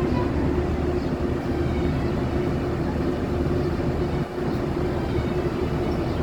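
A vehicle engine running steadily: a continuous low rumble with a constant hum over it, dipping briefly about four seconds in.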